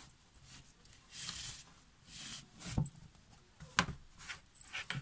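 Cotton fabric rustling and sliding as hands gather a drawstring bag along its cord and spread it out on a cutting mat, with a few short light knocks in the second half.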